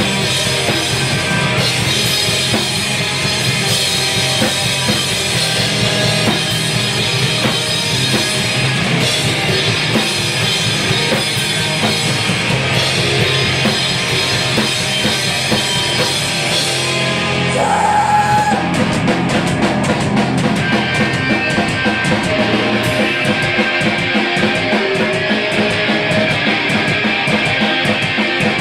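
Live hardcore punk band playing loud and dense: distorted guitars, bass and fast drums. About two thirds of the way through the song shifts, with a brief held guitar tone before the band comes back in.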